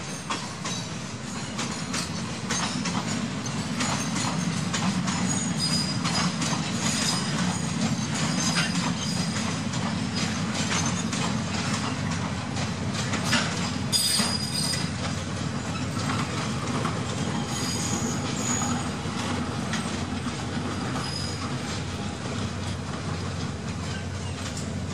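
Freight wagons rolling slowly through the yard points, with brief high wheel squeals and clicks over the rail joints above a steady low rumble.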